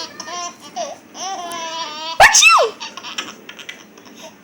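Baby laughing in short, high-pitched squeals. About halfway through comes a loud, sudden sneeze, its "choo" falling in pitch.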